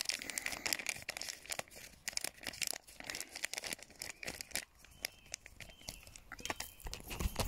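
Crinkling and tearing of a wet cat-food packet as the food is emptied into a bowl: irregular small rustles and clicks, with a low rumble near the end.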